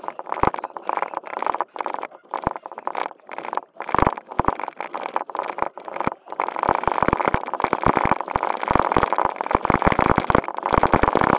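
Onboard sound of a JJRC Q76 1:16 4WD RC car driving over rough concrete and gravel: its small electric motor and gears run with a faint steady whine, broken by frequent knocks and rattles from the bumps, busier and louder in the second half.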